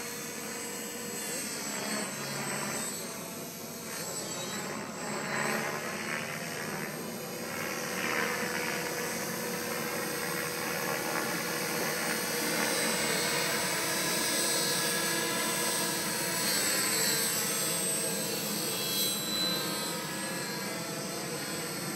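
Radio-controlled model helicopter flying overhead: its engine and rotor give a high whine that sweeps up and down in pitch several times as it manoeuvres and passes.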